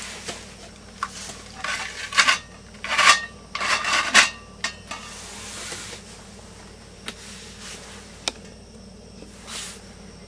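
Stainless steel camping frying pan clanking and scraping on a Coleman camp stove as it is shifted to sit level: a run of metal clatters between about two and four and a half seconds in, then a couple of single clicks.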